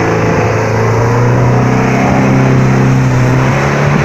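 Off-road 4x4 vehicle's engine running hard at steady revs, rising a little in pitch and loudness about a second and a half in.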